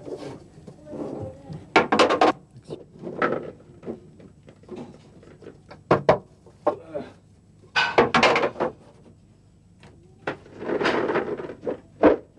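Knocks and clatter from the trays of a homemade boilie-rolling table being handled, and freshly rolled boilies tipped off a board into a plastic basin. The sound comes in several short bursts of rattling, with quieter gaps between.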